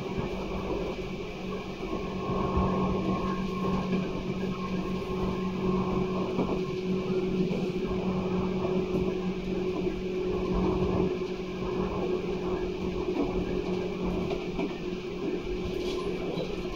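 JR Kyushu 811 series electric train running at a steady speed. The external-fan traction motors give a steady-pitched hum over the continuous rumble of wheels on the rails.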